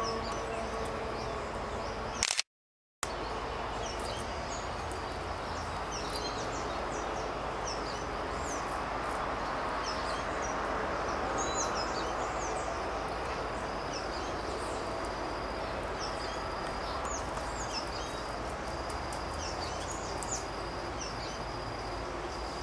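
Outdoor background hiss with many short, thin, high-pitched chirps of small birds scattered throughout. The sound drops out briefly a couple of seconds in.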